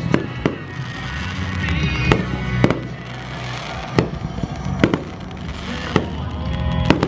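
Fireworks going off, about eight sharp bangs spaced roughly half a second to a second apart, over steady music.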